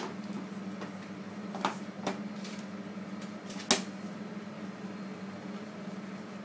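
Plastic clicks and knocks as the waste-ink pad box is pushed back into an Epson B300 printer and the cover is closed, about four in all, the loudest near four seconds in. A steady low hum runs underneath.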